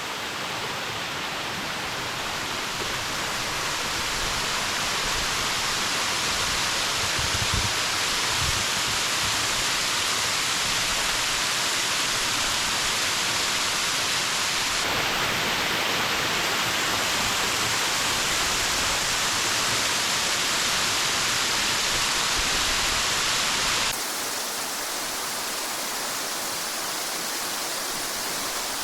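Waterfall's falling water rushing as a loud, steady, even hiss. Its tone changes abruptly twice, about halfway through and again near the end, where it also becomes a little quieter.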